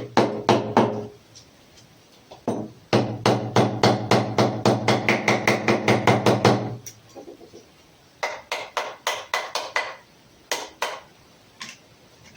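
Hammer blows in quick runs of rapid taps, about five a second, broken by short pauses and a few single strikes near the end.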